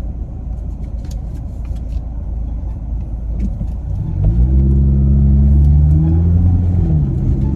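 Car engine and road rumble heard from inside the cabin. About four seconds in, the engine note rises as the car pulls away or speeds up, holds steady, then drops a little near the end.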